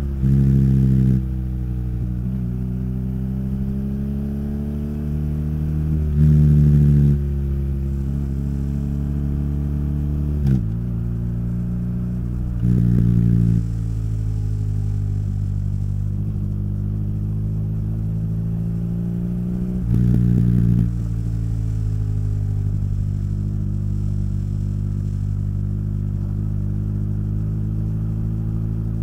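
BMW R nineT's boxer-twin engine and exhaust while riding. The note rises and falls gently with the throttle, with four brief louder surges of about a second each.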